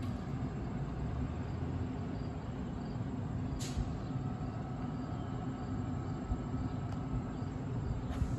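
Train running with a steady low rumble and hum, with one brief high hiss about three and a half seconds in.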